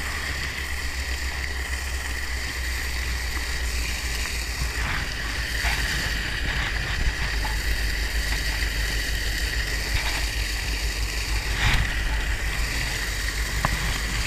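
Steady rush of water spilling into a creek, with a low wind rumble on the microphone. A hooked trout splashes at the bank a few times, in short sharp bursts.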